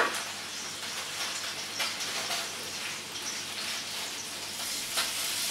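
Salmon and garlic frying in a wok over a low gas flame: a steady sizzling hiss, with a few light clicks.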